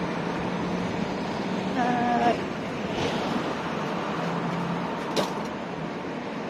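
Street ambience of steady road traffic, with a brief pitched sound about two seconds in and a sharp click about five seconds in.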